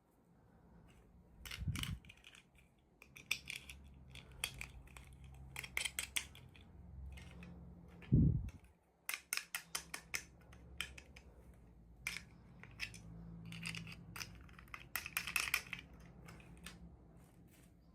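Small plastic toy pieces and packaging handled on a surface: a run of light clicks, taps and rustles, with a dull thump about two seconds in and a louder one about eight seconds in.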